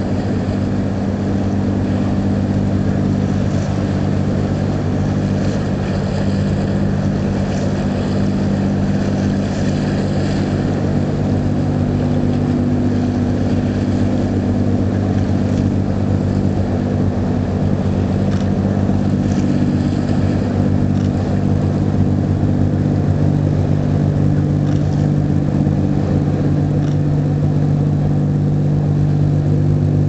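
Large bulk carrier's engine running as the ship passes: a deep, steady drone of several low hums held at one pitch.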